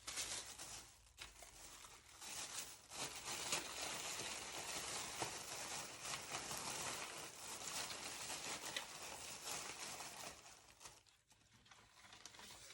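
Crinkling and rustling of packaging material as it is handled, in a dense crackle that dips briefly about a second in and fades near the end.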